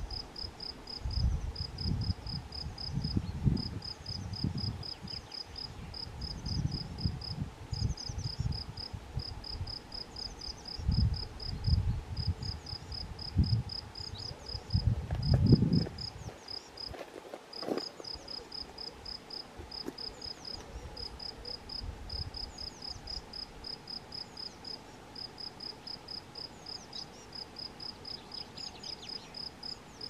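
An insect chirping steadily in a high, even pulse, about four chirps a second in runs broken by short gaps. A low rumble comes and goes through the first half.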